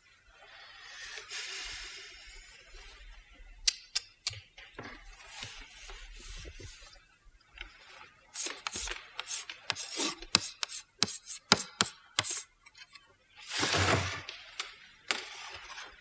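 Writing on a slate: short scratching strokes, sparse at first, then a quick dense run of strokes and one longer scrape near the end.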